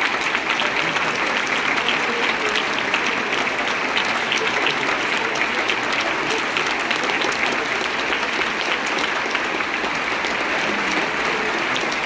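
Audience applauding steadily, many hands clapping at once in a dense, unbroken wash.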